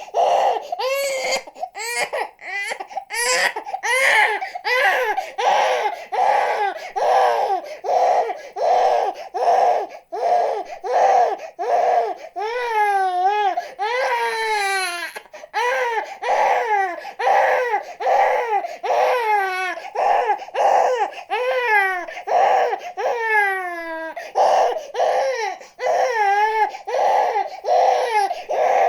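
A baby crying hard in short repeated cries, about two a second, with several longer wails that rise and then fall in pitch midway and again later on.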